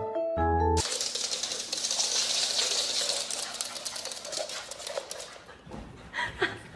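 Mallet-instrument music, like a vibraphone, cuts off under a second in. It gives way to a rustling, scratching noise full of rapid little clicks that slowly fades, with a short whine near the end.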